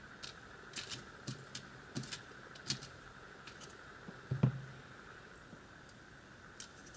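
Light, irregular clicks and taps of small metal lock parts, the pins and springs of a disassembled padlock, being handled and moved about. The loudest click comes about four and a half seconds in.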